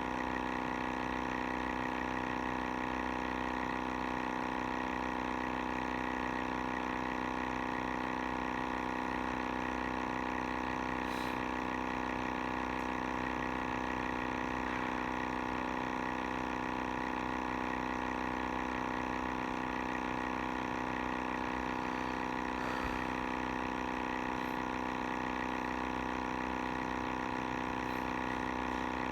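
Sibata air sampler's pump motor running at a constant speed, a steady drone with several pitches held unchanging throughout.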